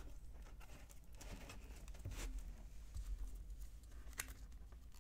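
Trading cards being handled: faint rustling with a few soft clicks, over a low steady hum.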